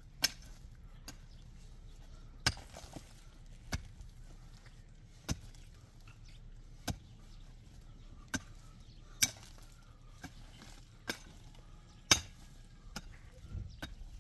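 A slow series of sharp knocks, about one every second and a half.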